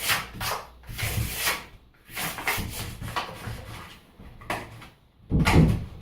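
Flexible plastic card scraping and rubbing in the gap between door and frame, in several irregular strokes, as it is worked against the spring latch. A louder scrape comes near the end.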